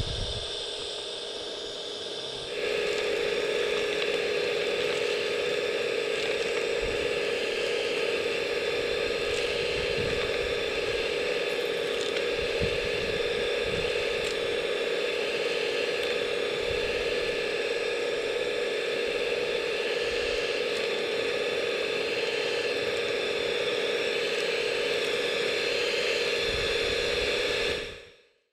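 Small electric suction unit of a scale model suction excavator running steadily, a whining fan with a hiss of air and soil being drawn in through its hose. It gets louder about two and a half seconds in, then fades out near the end.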